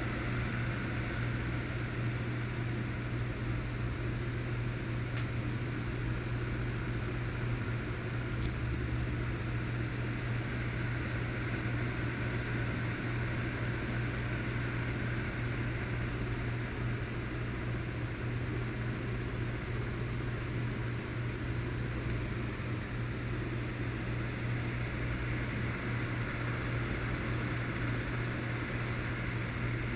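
Electric fan running steadily: a constant low hum with an airy whir. There are a few faint ticks in the first ten seconds.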